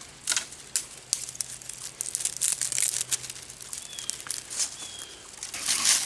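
Dry twigs and leaves crackling and rustling in short, irregular bursts.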